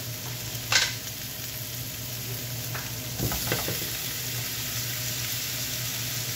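Sliced zucchini sizzling as it fries in a pan with butter, garlic and herbs. A sharp knock comes about a second in. A few smaller clicks follow about three seconds in as chopped tomato goes into the pan, and the sizzle grows louder after that.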